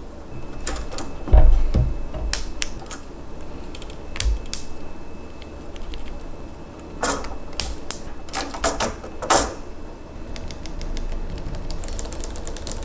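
Irregular plastic clicks and clacks of a mechanical keyboard being worked on by hand, with a dull knock about a second and a half in.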